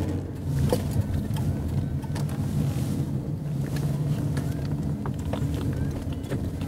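Patrol car's engine and road noise heard from inside the cabin as the car drives slowly, a steady low hum with a few scattered light clicks.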